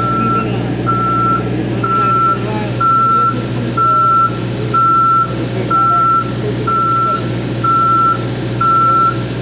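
Boom lift's motion alarm beeping about once a second, a single high tone, over the steady hum of its engine running while the boom is worked from the ground controls.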